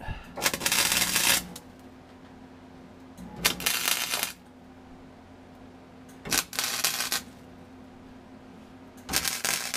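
Wire-feed welder arc-welding a steel floor patch panel in four short bursts of about a second each, crackling and sizzling while the arc is lit, with pauses between them: stitch welds laid in a bit at a time.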